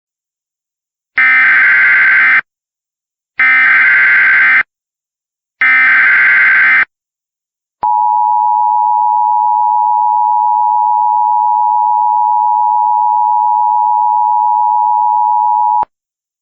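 Emergency Alert System tones: three bursts of SAME header data, each a rapid electronic warble lasting just over a second with a short gap between them. Then the steady two-tone EAS attention signal sounds for about eight seconds and cuts off sharply. Together they open a new alert, here a flash flood warning.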